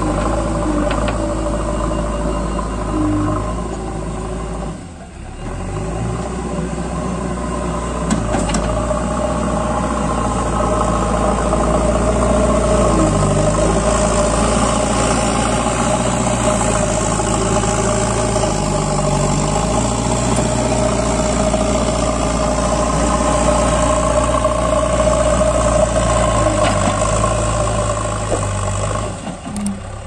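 JCB 3DX backhoe loader's diesel engine running under working load as the loader bucket digs and carries soil, its pitch shifting a little with throttle. The sound drops out briefly about five seconds in and again near the end.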